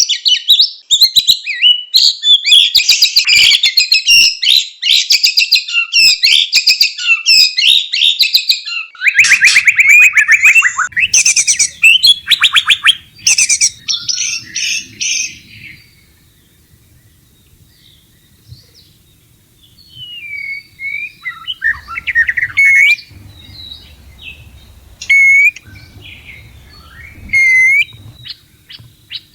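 White-rumped shama calling: a loud, dense run of rapid chattering and trilling notes for the first half. After that come sparser separate phrases and whistled notes with pauses between them. A faint low hum sits underneath from about nine seconds in.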